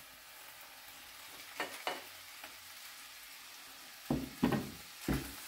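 Olive oil sizzling steadily in a frying pan with garlic and anchovies, with a couple of light utensil clicks near two seconds in and louder knocks about four and five seconds in, as tuna is spooned into the pan.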